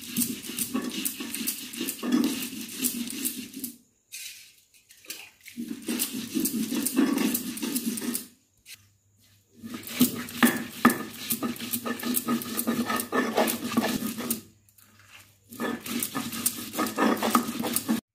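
Stone roller rubbed back and forth on a flat sil-batta grinding stone, crushing garlic cloves, dried red chillies and cumin seeds into a paste: dense gritty scraping with many small crunches, in four spells separated by short pauses.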